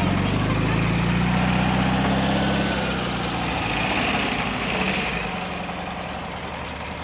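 A classic car's engine running steadily at low revs, its note dropping in level after about five seconds.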